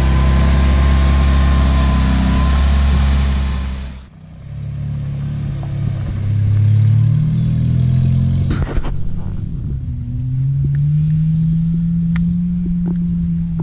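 Old Saturn car's engine revving hard, its pitch climbing and then held high, until it cuts off sharply about four seconds in. It then picks up again with revs rising and falling, broken by one sharp knock near the middle.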